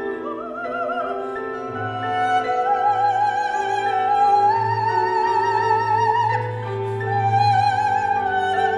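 Soprano singing a Hungarian contemporary classical lament, holding long notes with wide vibrato that climb step by step. A small chamber ensemble with strings accompanies her with sustained low notes that enter about two seconds in.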